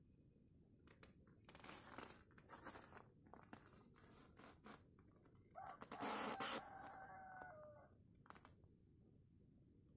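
A rooster crowing once, about six seconds in: a rough start and then a held, pitched call of about two seconds that drops at the end. Before it come scattered short rustling noises.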